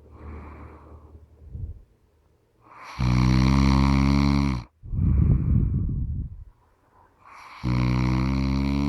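Heavy snoring: two long, low, buzzing in-breath snores about four and a half seconds apart, with a rough, noisy out-breath between them.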